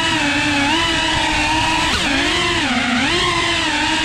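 FPV drone's electric motors and propellers whining at a steady pitch that dips and rises several times as the throttle changes, with a sharp jump about two seconds in.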